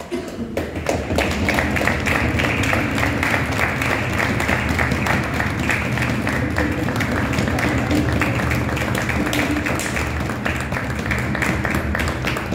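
A crowd clapping continuously over music, both starting suddenly at the outset.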